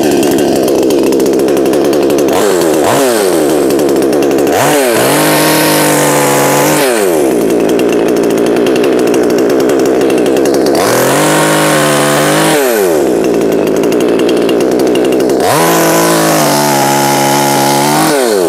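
Bu-Ko 65cc two-stroke petrol chainsaw with a 20-inch bar running, revving up to full throttle three times (a few seconds in, around the middle, and near the end) and dropping back between, as it cuts into hard, seasoned fallen timber.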